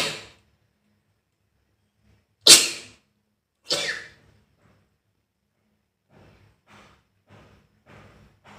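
A person sneezing three times: once at the start, then twice more close together a little after two seconds in. Near the end comes a run of short, quick breaths, about two every second.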